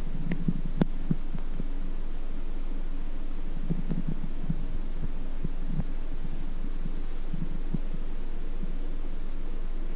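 Steady low hum in a hotel corridor, with soft, irregular low thumps from footsteps on carpet and the handheld camera being carried, and a single sharp click about a second in.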